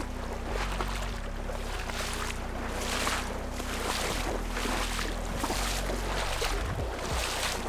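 Rhythmic splashing of river water, about one and a half splashes a second, over a steady low hum.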